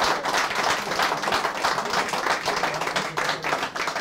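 A small group of people clapping, dense and irregular, beginning to die away near the end.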